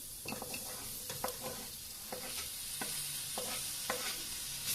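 A spoon stirring chopped tomatoes into onions and spice powders frying in oil in a pan, with irregular clicks and scrapes of the spoon against the pan over a steady low sizzle.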